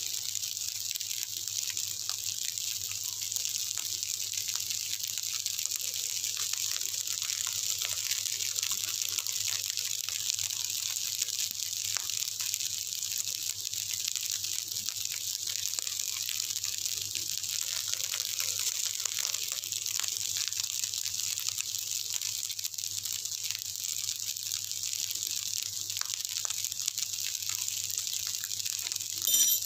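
Fried rice sizzling steadily in a hot wok, a constant high hiss over a low steady hum. Near the end there is a short sharp scrape of the spatula against the wok.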